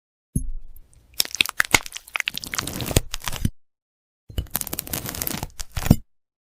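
AI-generated ASMR crackling and crunching of something brittle breaking: two runs of rapid, crisp snaps, the first about three seconds long and the second under two, with dead silence between.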